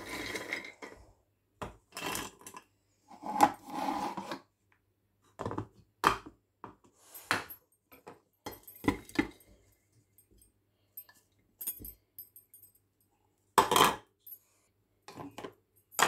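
Roasted cashews clattering by the handful into a grinder jar, with light clinks of plate and spoon, in scattered short bursts with quiet gaps between.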